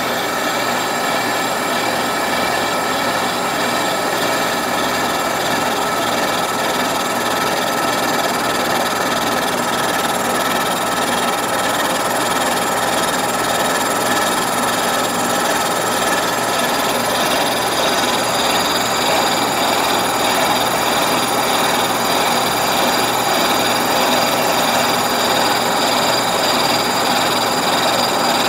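Kearney & Trecker horizontal milling machine face milling cast iron with a 3.5-inch high-speed steel shell mill on a 0.100-inch-deep roughing cut. The cutter's teeth chip steadily through the metal over the running machine, a constant grinding cutting noise.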